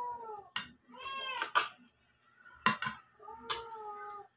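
Noodles being slurped and chewed, with sharp short slurping sounds, and several short high pitched calls in between, one of them held for about a second near the end.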